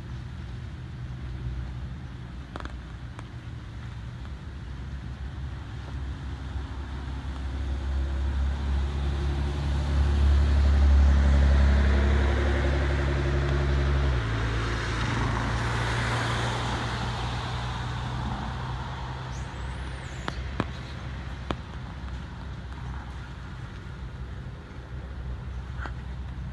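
A motor vehicle passing by: a low engine hum builds to its loudest about ten to thirteen seconds in and drops in pitch suddenly around fourteen seconds. A broad rush of road noise follows, peaking a couple of seconds later and then fading.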